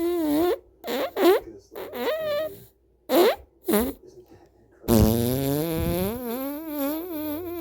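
Fart sounds: a run of short, pitched farts, then one long wavering fart starting about five seconds in.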